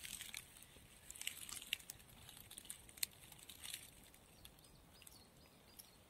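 Faint, scattered crackling and rustling of dry needle-and-twig litter, with one sharper click about three seconds in.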